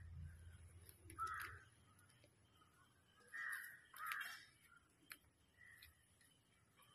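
A crow cawing outdoors: three short caws, one about a second in and two close together three to four seconds in.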